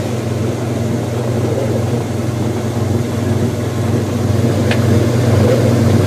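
Kenmore 80 series direct-drive washing machine spinning its empty basket: a steady low motor and drive hum that grows a little louder toward the end, with one light click about two-thirds of the way through.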